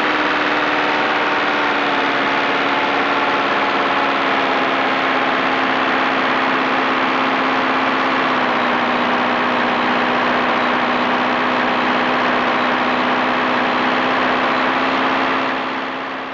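Model airplane's motor and propeller running steadily in flight, heard up close from on board, a steady buzzing drone whose pitch sags slightly. It fades away near the end as the plane comes down onto the grass.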